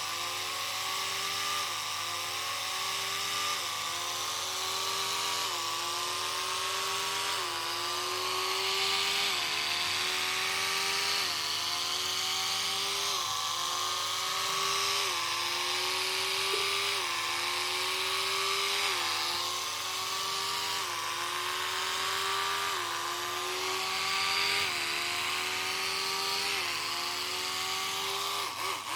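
A toothbrush made to sound like a Formula 1 car: a high, buzzing engine-like whine that climbs in pitch and drops sharply about every two seconds, like a racing engine shifting up through the gears.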